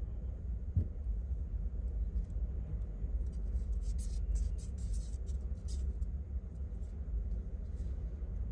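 Steady low background rumble, with faint soft scratching and rustling between about three and six seconds in as two kittens shift about on a fleecy towel.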